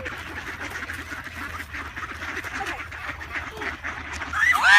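A flock of birds calling continuously over one another, with one loud, louder call near the end.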